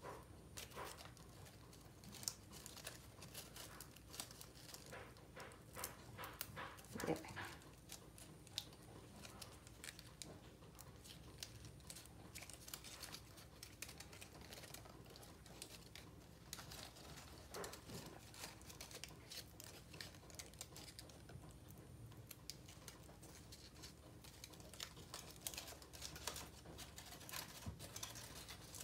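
Faint rustling and crinkling of paper being folded and creased by hand, with scattered soft ticks.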